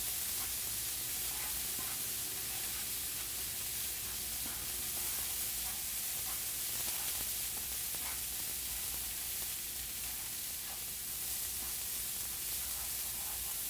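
Lentils, onions and spices sizzling steadily in a frying pan while being stirred with a wooden spoon, with a few faint scrapes of the spoon.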